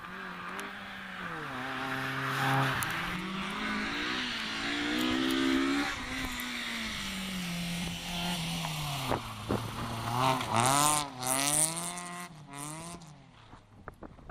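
Rally car engines under hard acceleration, the pitch climbing and then dropping at each gear change, with a quick run of revs and shifts near the end. Loose gravel hisses under the tyres in the second half.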